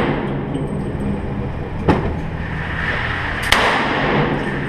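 Two gunshots from a semi-automatic M1 carbine firing .30 Carbine rounds, about a second and a half apart, each ringing off the walls of an indoor range.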